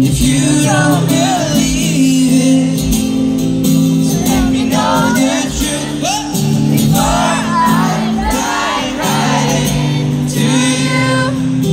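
Live concert sound through a large PA: a male singer's bending, melismatic vocal lines over sustained strummed acoustic guitar chords, heard from within the audience.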